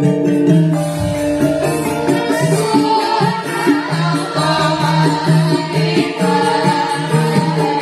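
Music with a singing voice over steady hand percussion.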